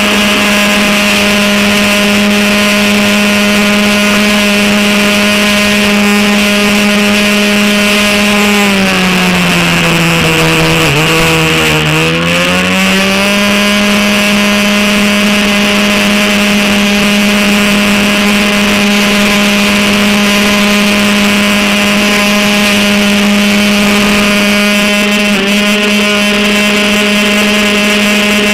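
Airboat engine and propeller running steadily at high speed. About a third of the way in the pitch drops for a few seconds as the throttle eases, then rises back to full speed.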